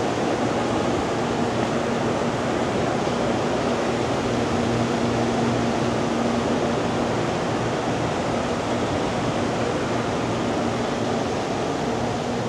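Steady rush and hum of a JR Kyushu 787-series electric express standing at the platform, its air-conditioning and auxiliary equipment running. A low steady tone fades in early, drops away about halfway through and returns near the end.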